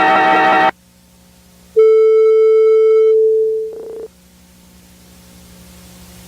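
Music cuts off under a second in. After a short gap, a single steady electronic tone like a phone dial tone or monitor beep sounds for about two seconds and stops abruptly. A faint low hum then slowly swells.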